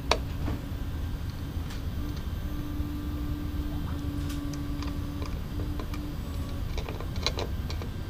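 A few small, sharp metal clicks from a hex key and needle-nose pliers working a limit-switch screw and nut on an aluminium frame, the loudest just after the start and a cluster near the end, over a steady low hum.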